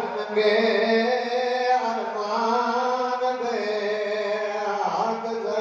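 A man's voice chanting a drawn-out devotional line into a microphone, holding long notes that step to a new pitch every second or so.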